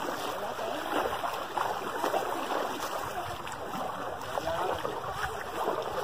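Water splashing around feet wading through a shallow, sand-bottomed stream, over the steady sound of the stream's flow.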